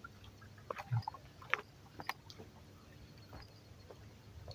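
Faint handling noises while a small catfish is taken off the hook: scattered light clicks and knocks, with a dull thump about a second in.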